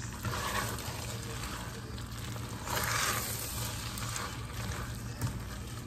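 A spoon stirring spaghetti and meat sauce in a pot, a wet stirring noise that swells about half a second in and again, louder, around three seconds in.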